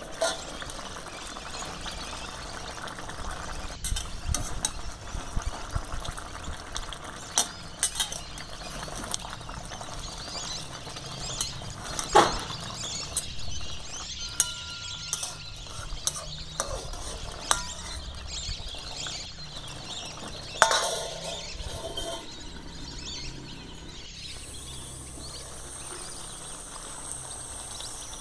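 Moong dal with fish heads simmering in a metal pan, while a steel ladle stirs it, clinking and scraping against the pan; a few louder clanks stand out, one about 12 seconds in and another about 20 seconds in.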